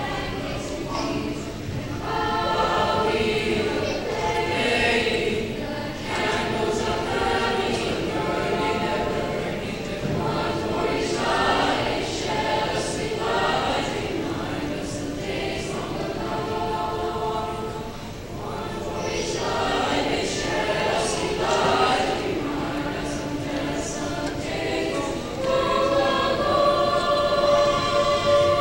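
Middle school madrigal choir of boys and girls singing in parts, phrase after phrase, ending on a louder held chord near the end.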